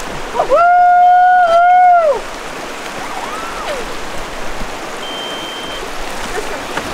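Steady rush of river water over rapids and boulders. About half a second in, a loud, high, long whoop is held for nearly two seconds with a short break in the middle. A fainter rising-and-falling call follows around three seconds in.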